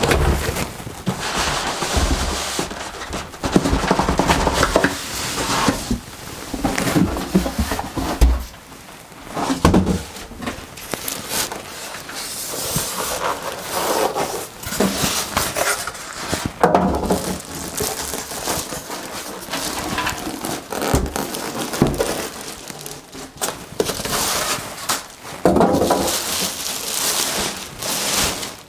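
Unpacking a mid-tower PC case: packaging rustles and crinkles, with irregular knocks and thumps as the case is handled.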